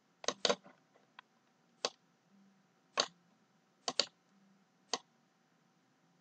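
Computer mouse clicks, about seven short sharp clicks spaced irregularly, two of them in quick pairs, as a mouse is used to open a menu and place a tab stop on the ruler in a word processor.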